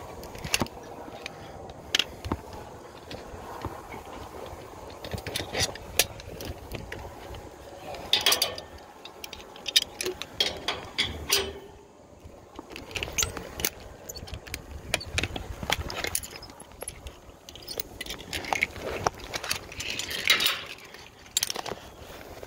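Metal climbing hardware and tools clinking and jingling, with irregular clicks and small clanks as gear is handled.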